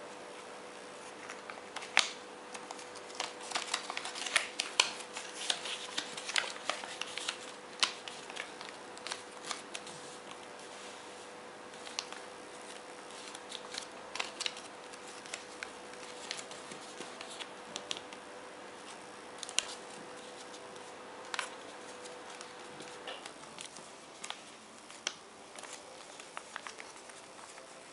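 Printed paper being folded and creased by hand for an origami model: crisp rustles and sharp creasing snaps, busiest in the first ten seconds, then sparser. A faint steady hum runs underneath and stops a few seconds before the end.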